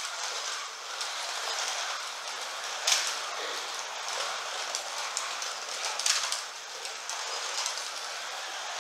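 Carrera Digital 1/32 slot cars running laps on a plastic track: a steady whirring hiss of small electric motors and guide braids on the rails, with a couple of sharp clacks about three and six seconds in.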